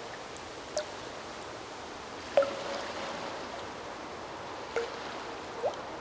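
Lagoon water lapping gently over a steady hiss, with four small plops and splashes; the loudest comes about two and a half seconds in.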